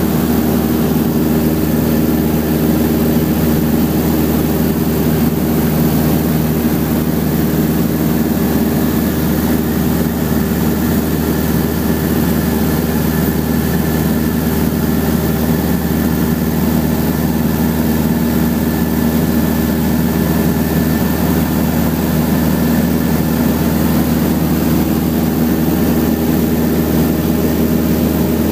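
Seaplane's propeller engine running steadily in flight, heard from inside the cabin as a loud, even drone.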